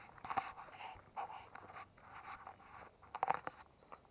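Close, irregular scraping and rustling, with a quick run of clicks about three seconds in.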